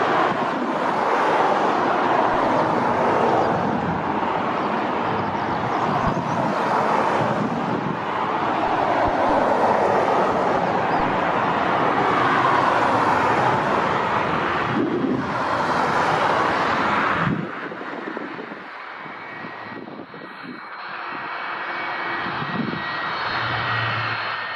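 Boeing 757-200 freighter's jet engines at taxi: a loud rushing roar that slowly sweeps up and down in pitch, dropping suddenly about two-thirds of the way in to a quieter engine whine with steady high tones.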